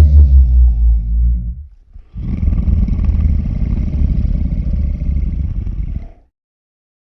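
Creature sound effects of Zilla, the giant lizard of the 1998 Godzilla film: a roar trails off, falling in pitch. After a short break, a rough, low rumbling sound runs for about four seconds and cuts off suddenly.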